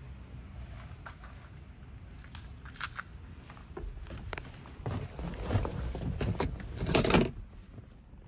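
Keys and a key fob jingling and clinking amid handling rustles, building to a louder clatter near the end.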